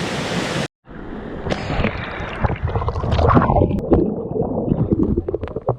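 Steady rushing of a waterfall. After an abrupt break about a second in, close, uneven gurgling and splashing water with scattered sharp knocks.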